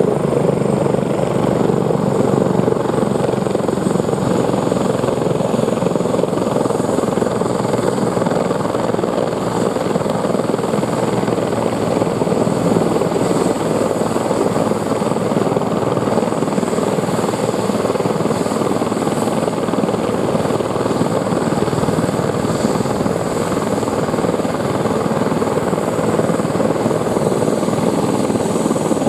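Eurocopter EC145 twin-turbine helicopter running with its main and tail rotors turning: a loud, steady rotor and engine noise with a thin high turbine whine over it.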